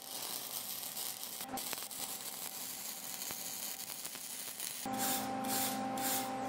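Stick (arc) welding electrode burning along the edge of a stacked copper and high-carbon steel billet, the arc crackling and sizzling steadily: the layers are being welded together before forging. About five seconds in this gives way to a wire brush scrubbing the fresh weld in about four quick strokes, over a steady hum.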